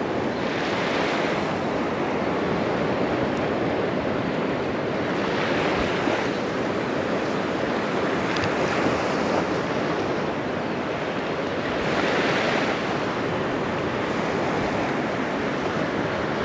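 Gulf of Mexico surf breaking on a sandy beach, a steady wash with waves surging in about three times, with wind buffeting the microphone.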